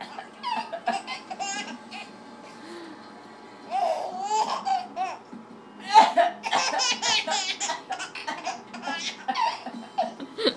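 Baby laughing in repeated bursts of high-pitched giggles and belly laughs, set off by an adult's fake coughing.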